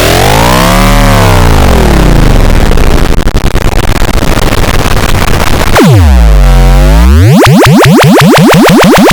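Loud, distorted iMovie sound effects, pitch-shifted into swooping synthetic tones. The pitch arches up and back down about a second in, swoops down and up again around six seconds, then sweeps upward in quick repeats near the end.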